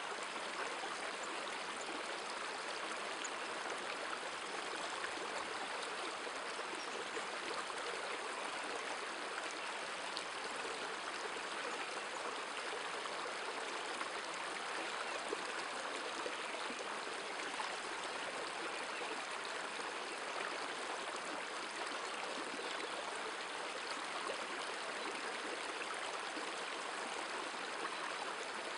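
River water running over a stony bed: a steady, even rush.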